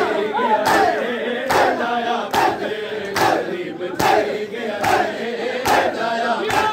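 A crowd of men chanting a noha in unison while beating their chests in matam. Their hand strikes land together as a sharp slap at a steady beat, a little faster than once a second.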